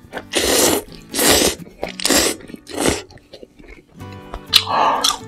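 Spicy instant ramen noodles being slurped up off chopsticks, several loud hissing slurps in quick succession. There are small chewing clicks in a short lull, then one more slurp near the end.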